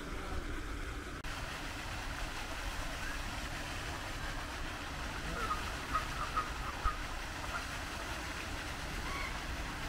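Steady outdoor background rumble and hiss, with a few short bird calls between about five and seven seconds in.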